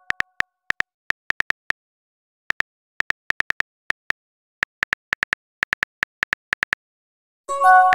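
Chat-app keyboard typing sound effect: quick clicks in irregular runs with short pauses, as a message is typed. Near the end a short chime rings as the message is sent.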